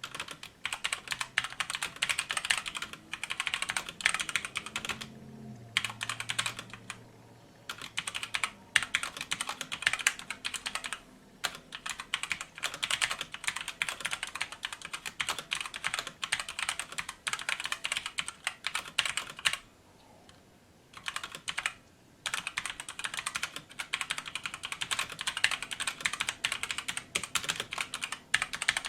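Typing on a RisoPhy wireless mechanical keyboard with linear red switches: quick runs of keystrokes with no switch click, each key clacking as it bottoms out. Short pauses break the typing every few seconds, the longest about a second, around two-thirds of the way through.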